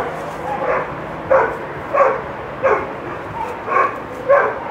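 A dog barking repeatedly in short, even barks, about one every two-thirds of a second.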